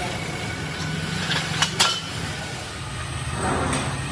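Geared slip-roll machine rolling steel strip into a rim hoop: a steady low machine hum, with two sharp metallic clanks of steel a little under two seconds in.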